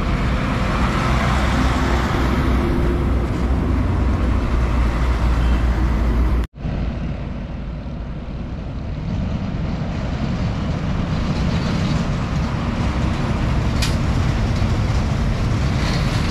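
Heavy diesel trucks passing on a highway: a loaded truck's engine rumbling with tyre noise as it goes by. After a sudden break about six and a half seconds in, another trailer truck's engine grows louder as it approaches and passes.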